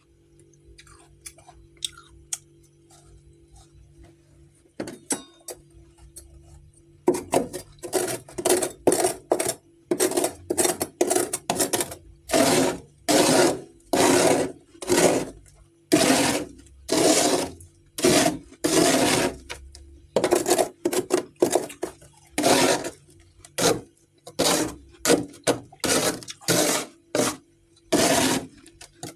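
Freezer frost chunks crunched between the teeth, close to the microphone. The first several seconds hold only faint clicks; about seven seconds in, a steady run of loud crunches begins, a little more than one a second.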